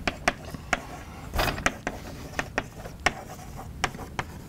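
Chalk writing on a blackboard: an irregular run of sharp taps and short scratchy strokes, with one longer scrape about a second and a half in.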